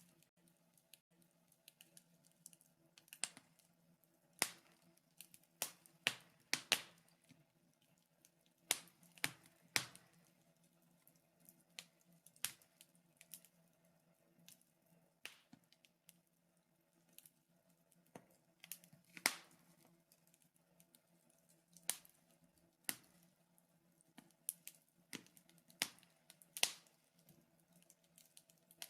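Wood fire crackling in a fireplace, with irregular sharp pops and snaps at uneven intervals.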